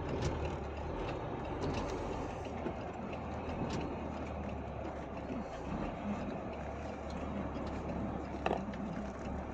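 Steady low engine hum and road noise inside a truck cab as the truck drives slowly, with a few faint clicks.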